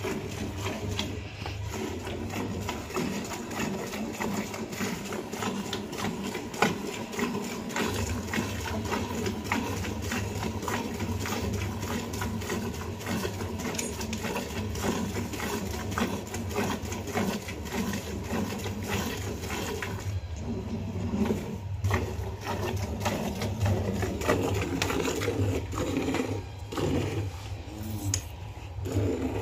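Rhythmic squirts of milk from a cow's teats into a milk pail during hand milking, stroke after stroke without pause, over a steady low hum.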